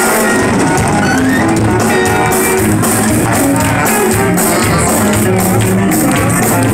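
Loud live band music: a sousaphone playing the bass line in steady low notes over a drum beat.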